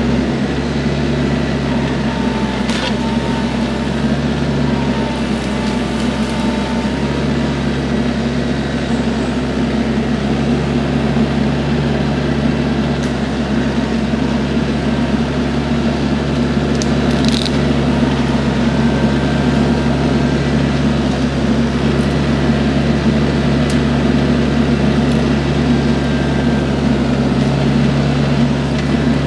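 TYM T474 compact tractor's diesel engine running steadily while working the hydraulic Mini Clip tree shear, with two sharp cracks, one about 3 seconds in and one about 17 seconds in.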